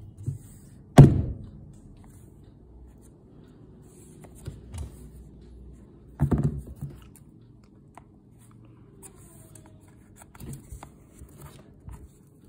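Packaging being handled and cut: a loud thump about a second in, then scissors snipping at the cellophane-wrapped cube box about six seconds in, with scattered small clicks and crinkles of plastic wrap.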